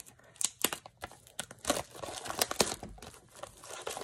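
Packaging crinkling and tearing as a small cardboard mystery box is opened by hand: an irregular run of crackles and short rips.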